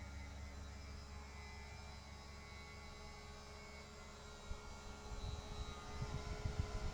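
A steady low electrical hum. From about four and a half seconds in, it is joined by irregular soft low bumps that come more often toward the end.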